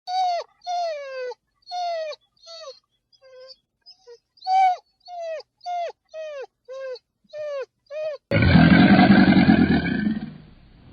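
A kitten mewing about a dozen times in short high calls, each falling in pitch. About eight seconds in, a loud, rough animal roar cuts in and lasts about two seconds.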